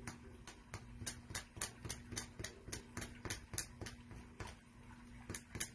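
Pen tip marking on fabric laid on a wooden table: short, irregular clicks and taps, several a second, over a faint steady hum.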